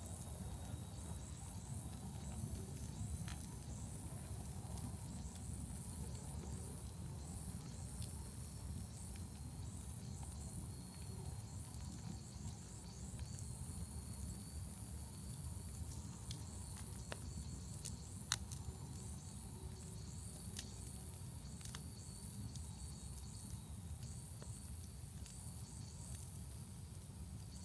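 Large wood fire burning with a low steady rumble, soft hiss and scattered crackles, with one sharper pop about eighteen seconds in.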